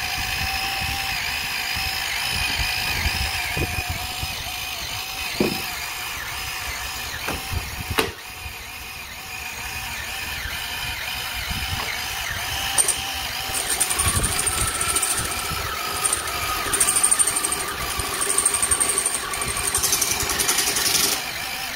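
Small electric appliances running off a truck bed's 400-watt power inverter: a steady, slightly wavering motor whine, with a sharp click about eight seconds in. From about fourteen seconds a different, higher whine runs, with bursts of high hiss near the end.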